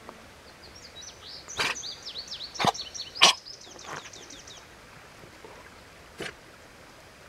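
A songbird singing a fast run of high, downward-slurred notes for about four seconds, over outdoor ambience. Five sharp knocks cut through, the loudest about three seconds in.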